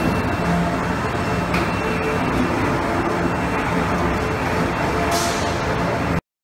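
Steady running noise of fruit-packhouse machinery and an automated bin-handling vehicle moving apple bins: a low hum with a faint high whine. A short hiss comes about five seconds in, and the sound cuts off suddenly just before the end.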